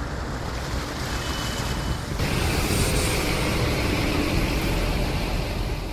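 Floodwater rushing through a street: a dense, steady noise that gets louder about two seconds in.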